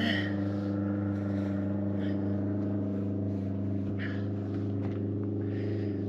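An engine running steadily in the background, a low even hum that holds the same pitch throughout, with a few faint rustles over it.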